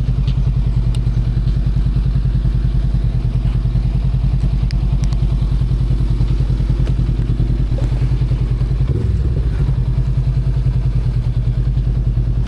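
Motorcycle engine running steadily, a low, even, rapid throb.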